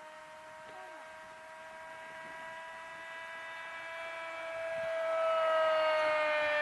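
Radio-controlled model airplane's motor whining steadily in flight. It grows louder as the plane approaches and its pitch drops slightly as it passes by near the end.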